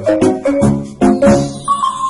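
Background music: a bouncy tune of short pitched notes over a quick, steady beat.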